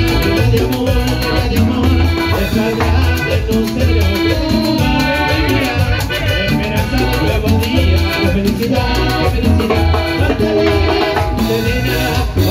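Live cumbia band playing a steady dance beat, with electric bass, timbales and a metal güiro.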